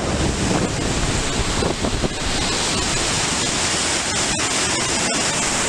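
Fast river water rushing and churning through a narrow rock gorge below a waterfall, a steady loud rush of water, with wind on the microphone.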